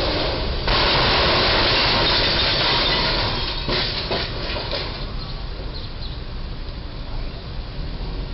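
A rental box truck's box body striking and scraping along the steel crash beam of a low railroad bridge: a sudden loud crash about a second in, then a couple of seconds of grinding, scraping metal as the top of the box is crushed and peeled back, then a few sharp clattering knocks of loose debris before it settles to a steady, lower noise.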